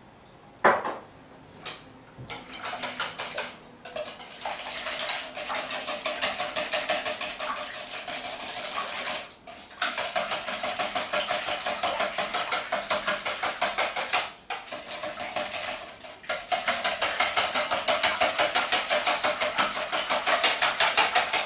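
Wire balloon whisk beating eggs and milk by hand in a plastic mixing bowl: fast, even strokes of the wire against the bowl, stopping briefly a few times. A couple of single clinks come just before the whisking starts.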